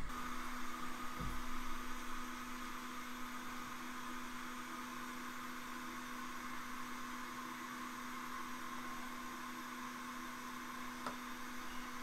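A steady electrical hum with faint hiss, and a single faint click near the end.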